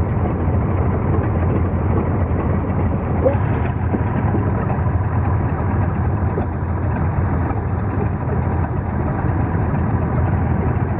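Antique farm tractors idling: a steady, low engine hum.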